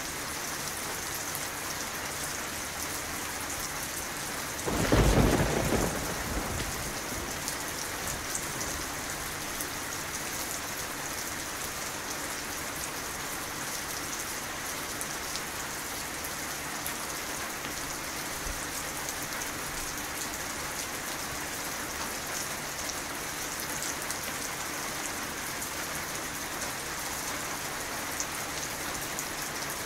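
Steady rain falling and pattering. About five seconds in comes a single clap of thunder, the loudest sound, which rumbles away over the next couple of seconds.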